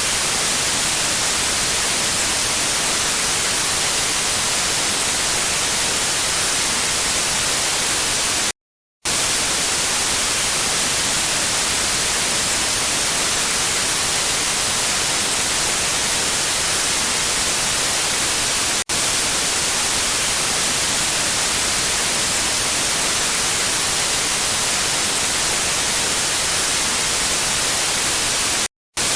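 Steady, loud static hiss of a lost signal, brightest in the high end. It cuts out to silence for about half a second twice, once about nine seconds in and again near the end, with a very brief dip in between.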